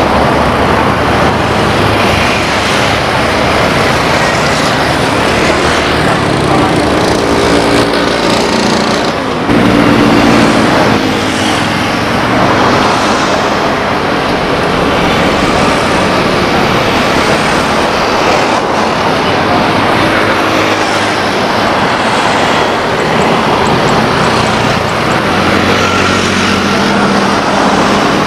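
Loud, steady engine noise with a pitched drone that strengthens about ten seconds in and comes back near the end.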